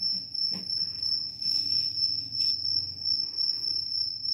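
A cricket trilling steadily, one high-pitched unbroken tone, with a few faint taps and scratches of a pen on paper.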